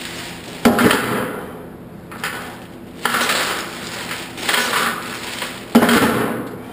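Steel chains hung on a bench-press bar clanking and rattling through repetitions: three sharp clanks about two and a half seconds apart, each trailing off into a jingling rattle.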